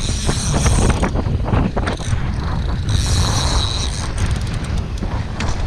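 Wind buffeting the microphone, with a spinning reel being cranked to bring in a hooked fish on a bent rod; the reel's high, ticking whir comes twice, about a second each time.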